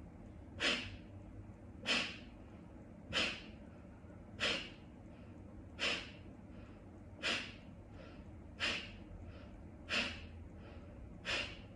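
Kapalabhati breathing: nine sharp, forceful exhales through the nose, driven by the abdominal muscles, evenly spaced about one every 1.3 seconds, with faint passive inhales between them.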